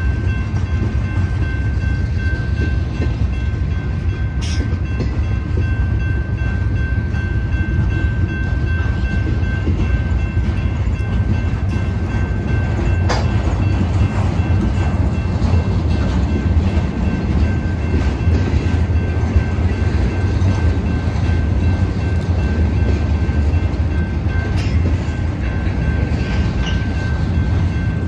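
Freight train of flatcars rolling past close by: a steady rumble of steel wheels on rail with a thin, constant high tone over it, and a few sharp clanks, the loudest about halfway through.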